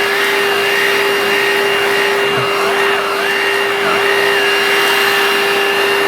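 Bissell Pet Hair Eraser cordless handheld vacuum running steadily with its beater bar, its motor whine wavering in pitch up and down as the nozzle is worked over a hairy velour seat.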